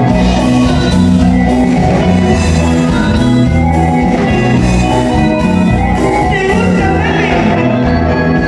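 Live band playing loudly through a PA: electric guitars, bass guitar and drum kit, with a strong, steady bass line.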